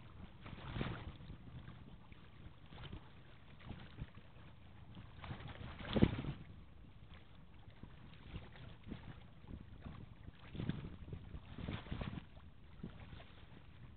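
Wind buffeting the microphone in irregular gusts, with a sharp thump about halfway through.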